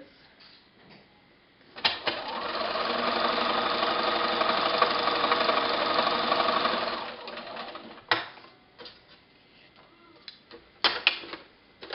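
Domestic sewing machine stitching a seam through a paper foundation and fabric: it speeds up after a click about two seconds in, runs steadily for a few seconds, then slows and stops. A few sharp clicks of handling follow near the end.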